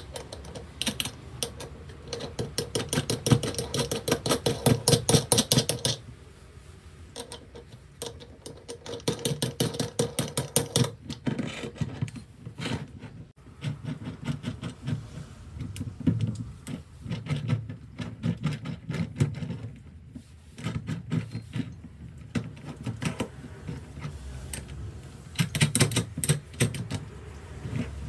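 Rapid, evenly spaced mechanical clicking in several bursts of a few seconds each, with duller low knocks between the bursts.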